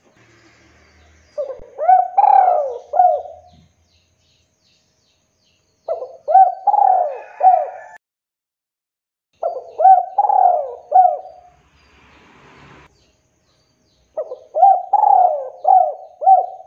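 Male spotted dove cooing: four phrases of several quick, arching coos each, a few seconds apart.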